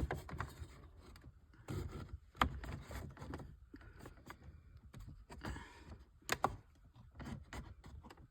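Plastic dash trim panel being worked loose by hand: scraping and rubbing of plastic against plastic, with a few sharp clicks and knocks from its retaining clips, two close together near the end. The clips are stiff from the cold.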